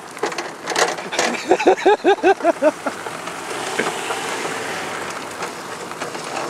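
A few rattling knocks, then a quick run of about seven short rising-and-falling laughing syllables from a person, followed by the steady rush of a go-kart's tyres rolling over asphalt as it is towed by chain behind a bicycle.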